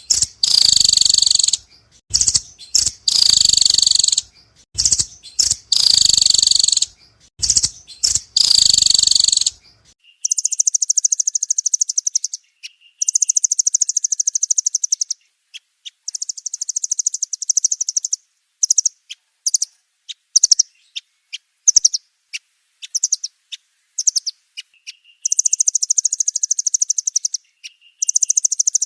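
Nuthatches calling in repeated bursts of rapid, high trills with short pauses between. About a third of the way in the sound changes to a cleaner recording, with lower single notes between the trill runs.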